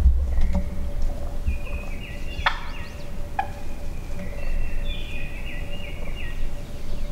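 Wild turkeys calling close by: a sharp note about two and a half seconds in, then a run of stepped, falling calls from about four to six seconds in, over a low rumble.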